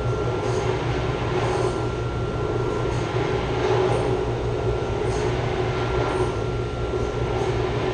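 Chiller plant's chilled-water pump running with a loud, steady rumbling hum and a faint steady high tone. This is the loud pump noise that comes with the shaking copper lines, which the uploader puts down to a clogged strainer.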